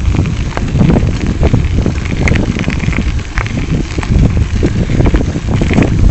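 Wind buffeting the microphone of a camera on a moving bicycle, mixed with a steady crackle of tyres rolling over a loose gravel path.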